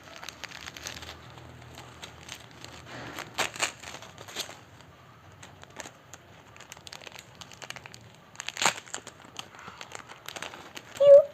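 Plastic packaging being crinkled and torn open by hand in irregular bursts, with one sharp rustle about two-thirds through. A brief high-pitched vocal sound comes near the end.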